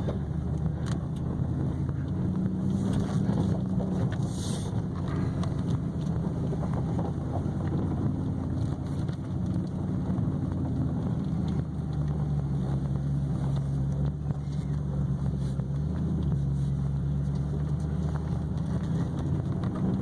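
Maserati GranTurismo S 4.7-litre V8 under way in sport mode, exhaust valves open, giving a deep, grunty exhaust drone heard from the cabin. The engine note steps down in pitch about two-thirds of the way through, as with an automatic upshift.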